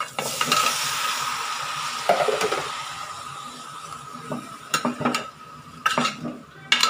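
Raw chicken pieces hitting hot oil and fried onions in an aluminium pot, setting off a loud sizzle that starts suddenly and fades over a few seconds. From about four seconds in, a steel spoon stirs the chicken, scraping and knocking against the pot several times.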